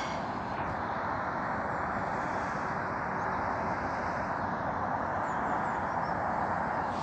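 Steady rush of fast-flowing floodwater running toward a weir, an even, unchanging wash of noise.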